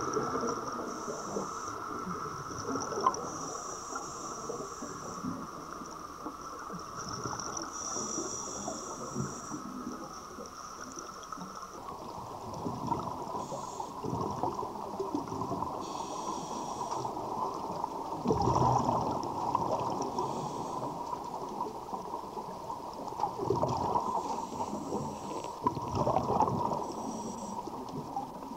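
Muffled underwater sound of a scuba diver's regulator: breathing and bubbling that swell every few seconds, over a steady hiss.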